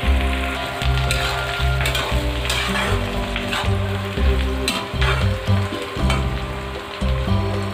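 Sliced onions sizzling in hot oil in a metal kadai, with a metal spatula scraping and stirring them in several short strokes.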